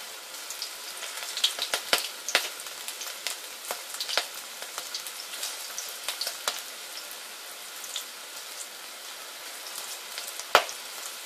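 Besan-battered okra slices deep-frying in hot oil in a steel kadai: a steady high sizzle broken by frequent sharp crackles and pops, with one louder crack near the end.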